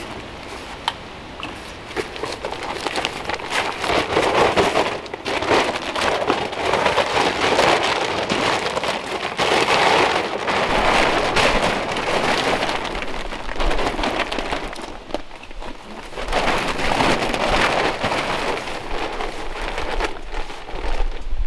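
Large plastic tarp crinkling and rustling as it is unfolded, shaken out and draped over a pop-up canopy frame, swelling and fading in waves with a brief lull about two-thirds of the way through.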